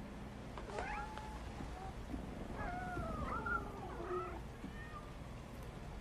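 House cats meowing: one meow about a second in, then several overlapping meows in the middle, as from more than one cat.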